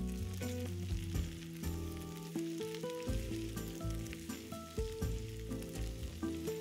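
Food sizzling as it fries in a pan, with background music.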